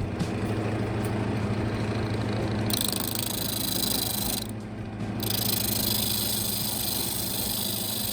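Wood lathe motor running steadily, with a tool cutting into the spinning wooden block in two spells of hissing: one from about a third of the way in, and another from a little past the middle.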